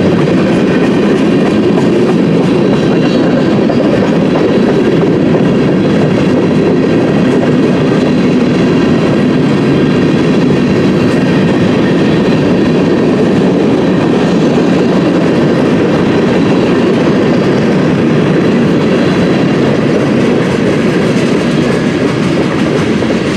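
Freight train's cars (tank cars and covered hoppers) rolling past close by: a loud, steady rumble of steel wheels on the rails.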